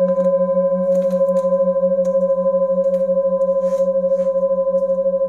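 Metal singing bowls ringing in a steady, unbroken drone: a low tone with a quick, even wobble under clearer higher tones, with a few faint clicks over it.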